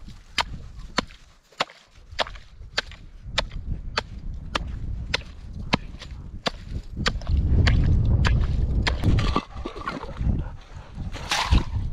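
Firewood being chopped: sharp, evenly spaced strikes, a little under two a second. A low rumble comes up about seven seconds in and becomes the loudest sound.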